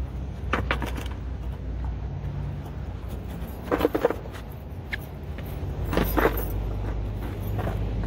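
Skateboard clattering on pavement: a light clack near the start, a loud cluster of knocks from deck and wheels hitting the ground about four seconds in, and another clatter about six seconds in, over a steady low rumble.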